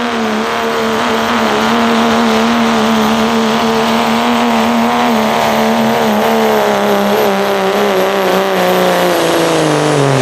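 Second-generation Dodge Ram's Cummins diesel running hard under load while pulling the weight sled, with a high turbo whine over the engine. The engine pitch holds steady, then sags over the last couple of seconds as the truck bogs under the sled.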